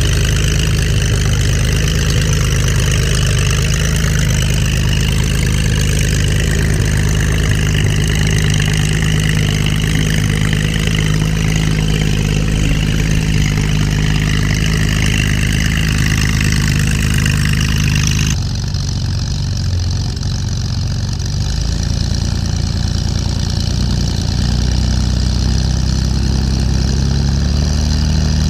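Converted Corvair air-cooled flat-six aircraft engine idling steadily with its propeller turning. About two-thirds of the way through, the sound abruptly turns duller and a little quieter.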